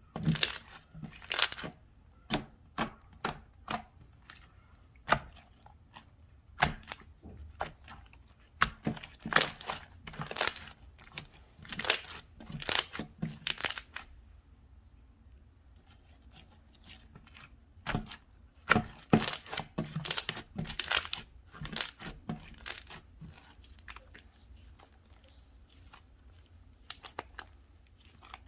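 Slime being squeezed and stretched by hand, giving irregular bursts of sticky crackling and tearing sounds. There is a short quiet pause about halfway through.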